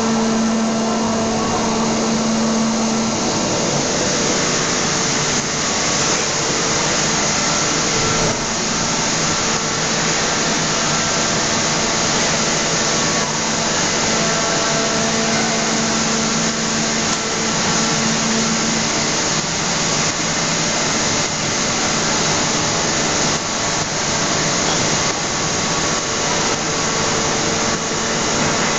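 Steady, loud machinery noise from an aluminium wheel forging hydraulic press line: an even hiss with a low hum that comes and goes.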